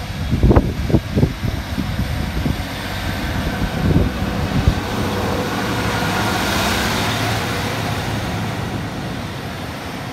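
A train passing through the station: a rushing rumble that swells to its loudest about halfway through and slowly fades. A few low thuds come in the first second or so and again about four seconds in.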